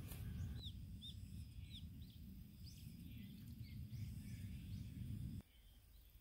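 Small birds chirping, many short high arched calls, over a low rumble that cuts off abruptly about five seconds in.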